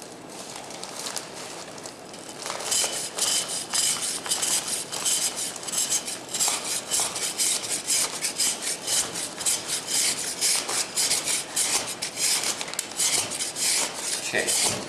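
Surform rasp scraping hard, dry plaster off a face lifecast in rapid repeated downward strokes, starting about two and a half seconds in.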